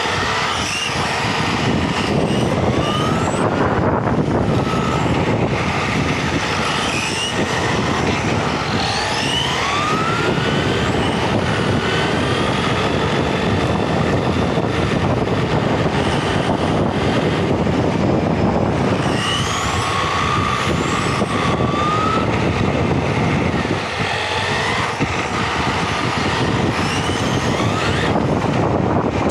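Electric RC touring car heard from a camera mounted on the car itself: a steady rush of tyre and drivetrain noise on asphalt, with a motor whine that rises and falls over and over as the throttle opens and closes.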